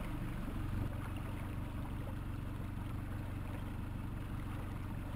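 Outboard motor running steadily at trolling speed.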